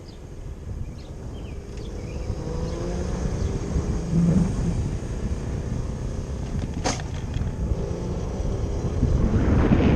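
Leonard Motor Works Starrettania prototype electric motorcycle being ridden: a faint motor whine that bends up and down in pitch over low wind and road rumble, growing louder toward the end. There is a sharp click about seven seconds in.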